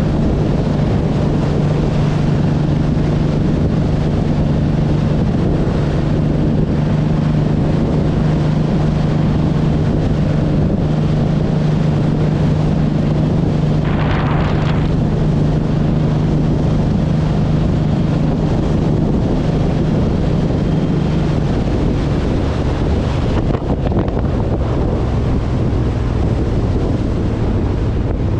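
Motorcycle engine running at a steady cruising speed under heavy wind buffeting on the microphone; the engine note drops a little about three-quarters of the way through.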